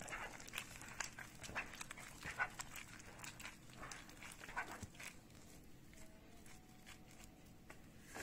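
Gloved hand squeezing and kneading a wet mixture of butter, oil, egg and yogurt in a glass bowl: faint, irregular squelches that stop about five seconds in.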